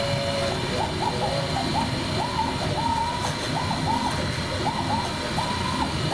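CNC router carving high-density tooling foam: the spindle runs with a steady hiss and a high whine, while the axis drive motors whine at a middle pitch that jumps up and down several times a second as the tool changes direction.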